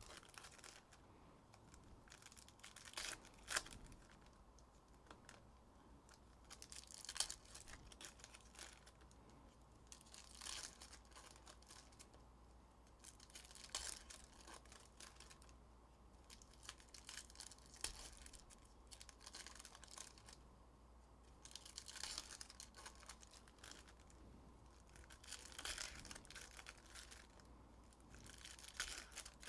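Faint tearing and crinkling of trading-card pack wrappers being ripped open by hand, in short crackly bursts every few seconds.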